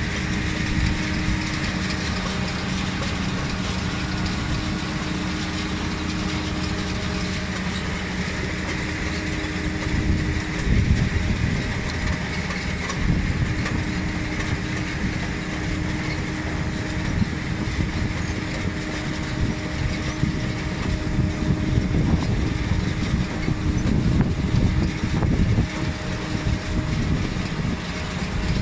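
Grimme Varitron 220 self-propelled potato harvester running as it crawls on its rubber tracks through wet, muddy soil: a steady engine and machinery hum. From about ten seconds in, a rougher, uneven low rumble joins it.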